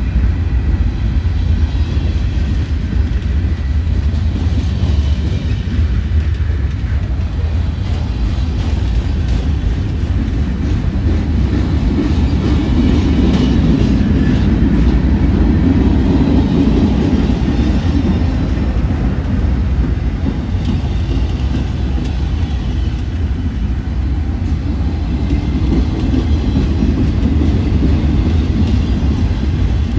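Cars of a Union Pacific manifest freight train rolling past: a steady rumble and clatter of steel wheels on the rails, swelling a little around the middle.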